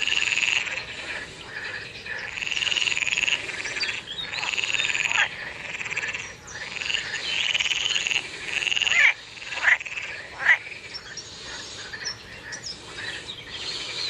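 Frogs croaking in repeated rattling bouts about a second long each, with a few short sharp calls a little after the middle, then quieter calling toward the end.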